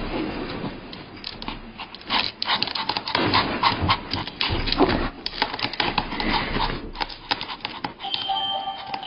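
Small white spitz-type dog whining, with claws tapping and scraping on a glass tabletop as it paws at a treat. Music with steady tones comes in near the end.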